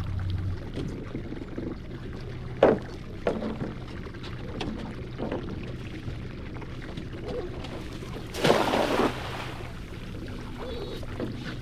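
Sounds of work on a small boat: water pouring and trickling, a sharp knock a few seconds in followed by a couple of lighter knocks, and a short rush of water about eight and a half seconds in.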